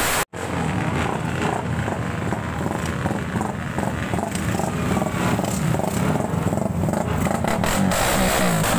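Several small motorcycles riding past one after another, their engines revving and rising in pitch as they pull away. The sound cuts out for a moment just after the start.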